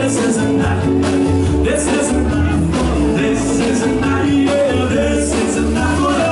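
Rockabilly band playing live: upright double bass, drums and electric guitar at a steady beat, with sung vocals.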